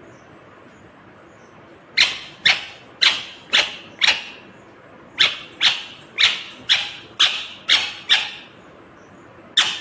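Indian ringneck parrot (rose-ringed parakeet) giving sharp, shrill calls about two a second, starting about two seconds in: a run of five, a short pause, then a run of seven and one more near the end.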